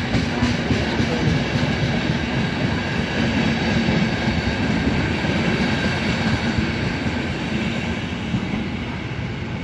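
Passenger train rolling past along the platform: a steady rumble of wheels on rail that slowly fades toward the end as the last car goes by.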